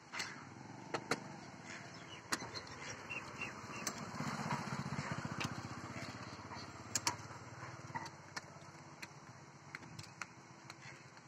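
A motor vehicle's engine passes, rising to its loudest in the middle and then fading. Short, sharp calls from the roosting egret colony are scattered throughout.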